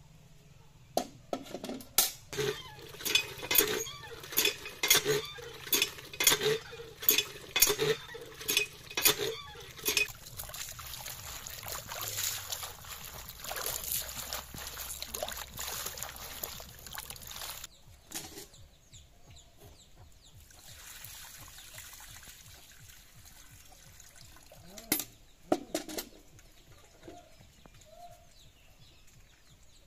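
Hand pump being worked, a sharp stroke sound about twice a second for several seconds. Then water gushes and splashes into an aluminium pot as water spinach leaves are washed in it by hand, stopping abruptly. A few more pump strokes come near the end.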